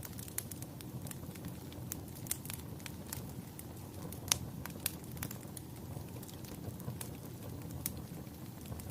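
Fire crackling: irregular sharp pops and snaps over a low, steady rush of burning. The loudest pop comes about four seconds in.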